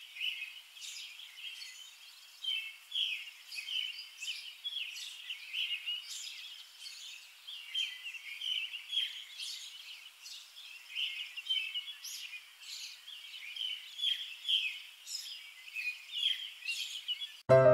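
Birds chirping: a continuous stream of short, high, overlapping calls with nothing low beneath them. Piano music comes in right at the end.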